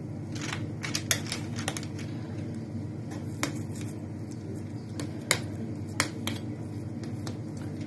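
Metal spoon clicking and scraping against a stainless steel square pastry ring as minced meat is spread and pressed into it, giving scattered light clicks over a steady low hum.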